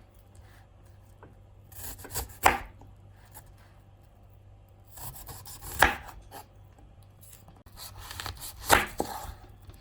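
A kitchen knife cutting through a peeled pear and striking the chopping board: three sharp chops about three seconds apart, with lighter knocks and short slicing sounds between them.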